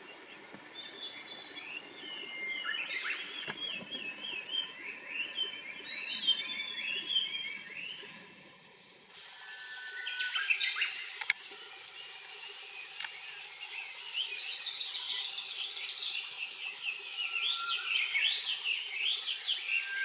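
Male blue-and-white flycatcher singing: repeated song phrases of quick whistled notes, one bout in the first half and, after a short pause, a second bout that runs to the end.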